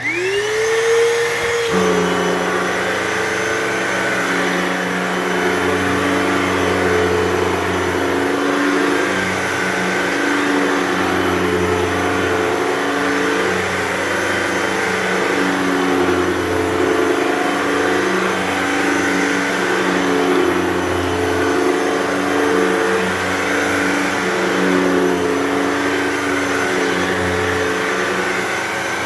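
Hoover Total Home Pet upright vacuum switching on, its motor spinning up with a rising whine, then running steadily on carpet. Its pitch dips and recovers every couple of seconds.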